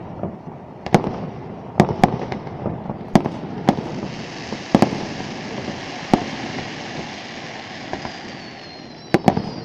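Fireworks shells bursting: a dozen or so sharp bangs at irregular intervals over a steady background noise. A hiss builds from about four seconds in, and near the end a high tone slides slowly down.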